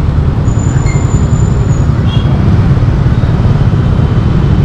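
Motorcycle on the move: a steady, heavy low rumble of wind and engine on the rider's microphone, with road noise over it.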